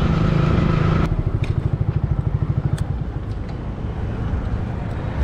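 Yamaha MT-15's 155 cc single-cylinder engine running under way. About a second in the throttle closes and the engine drops to a pulsing idle as the bike comes to a stop.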